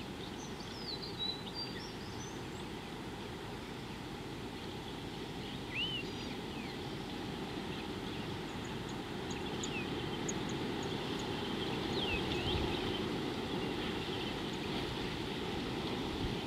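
A steady low rushing background noise with scattered calls of wild birds: a few short whistled and chirping notes, and a quick run of high ticks about halfway through.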